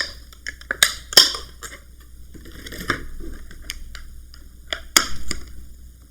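Handling the new laptop memory modules and their plastic packaging: a run of sharp clicks and snaps with a brief crinkle about halfway through.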